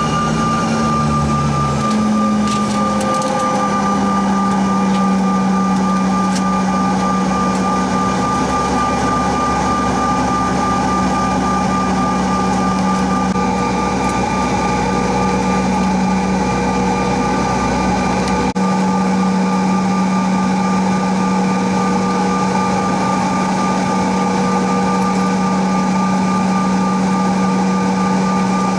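Bombardier CRJ-900LR jet engines heard from inside the cabin while taxiing: a steady whine over a deep hum, with a few tones falling away in the first couple of seconds. A low rumble underneath drops out about two-thirds of the way through.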